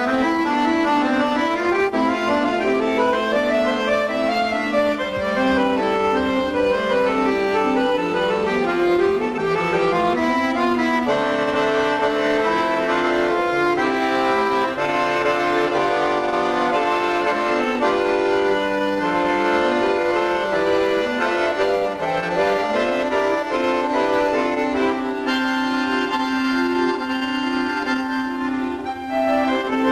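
Bayan (Russian chromatic button accordion) played solo: a melody moving over held chords and bass notes in the left hand.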